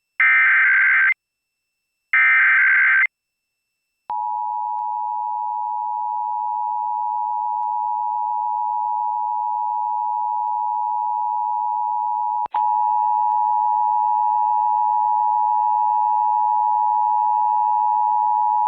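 Emergency Alert System SAME header: the last two one-second bursts of screechy digital data tones, a second apart. After about a second of silence comes the EAS attention signal, a steady two-tone 853/960 Hz alert tone, which about eight seconds later turns louder with a click and gains fainter, higher tones.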